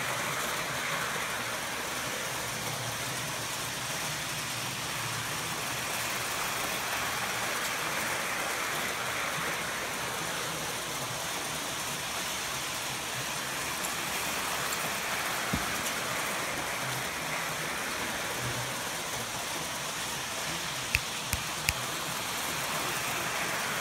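Lionel O-gauge model trains running on FasTrack: a steady whir and rumble of the electric motors and wheels rolling on the track, with a few sharp clicks near the end.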